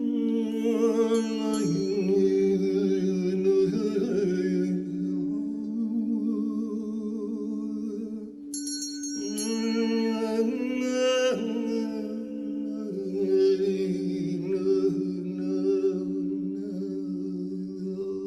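Wordless vocal toning, a wavering voice with vibrato, sung over a steady low drone in a sound-healing chant. A brief bright ringing tone sounds about eight and a half seconds in.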